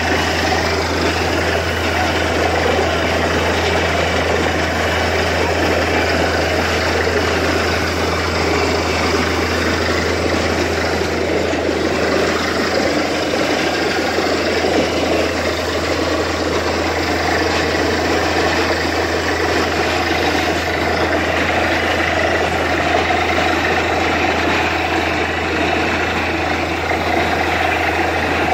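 Truck-mounted borewell drilling rig running steadily, its engine a constant low drone, while water and slurry gush out of the freshly drilled bore and splash onto the ground in a continuous rushing noise.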